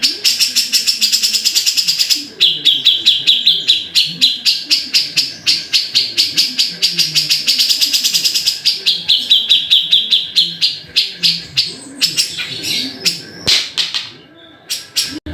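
Grey-cheeked bulbul (cucak jenggot) singing a loud, fast chattering run of rapidly repeated notes. It thins out and breaks off a couple of seconds before the end. A fainter, lower wavering sound runs underneath.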